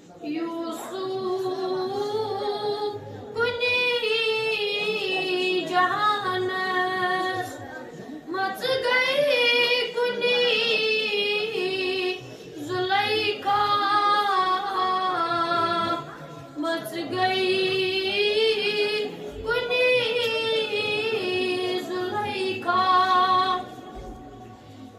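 A boy singing a Kashmiri naat unaccompanied, in a high voice with long, wavering melodic lines broken by short pauses for breath every few seconds.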